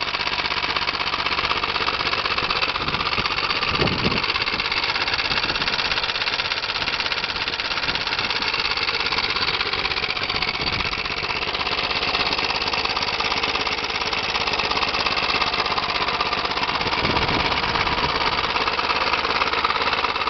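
Small 98 cc Qualcast Suffolk single-cylinder petrol engine running steadily.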